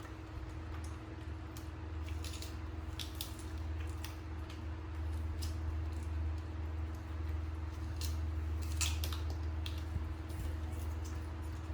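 Crisp Indian jujube being chewed: scattered short crunching clicks, thickest about two seconds in and again near the eight-second mark, over a steady electrical hum.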